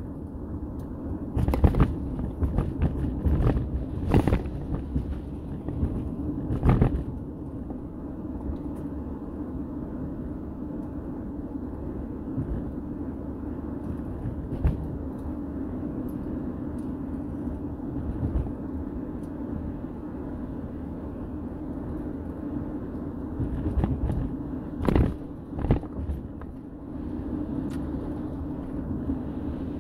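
A vehicle driving at road speed: a steady low engine and road drone, with several sharp thumps in the first seven seconds and two more about twenty-five seconds in.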